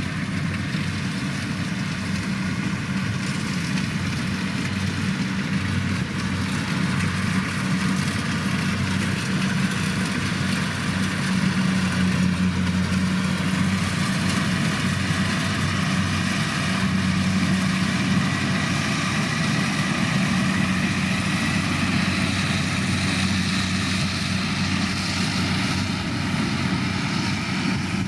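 Kubota DC105 combine harvester's diesel engine running steadily, with a constant low hum.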